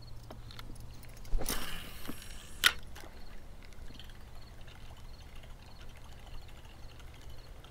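Spinning reel cranked to retrieve a buzzbait across the water's surface. A brief watery splash comes about a second and a half in, and a sharp click about a second later.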